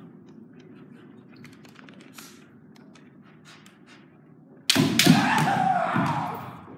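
Kendo exchange: faint light clicks as the bamboo shinai tips touch, then about two-thirds in a sudden loud clash, with sharp cracks of shinai strikes and stamping feet under both fighters' loud kiai shouts, which fade away near the end.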